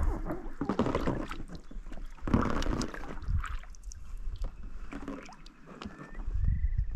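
Canoe paddle strokes dipping and splashing in calm water, about four strokes a second or two apart. A thin high tone rises and then holds near the end.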